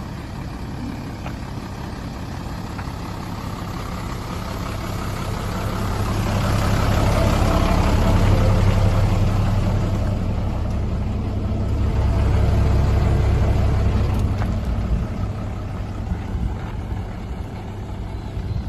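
Mitsubishi Fuso Fighter truck's 6D17 inline-six diesel engine idling steadily, growing louder for several seconds in the middle.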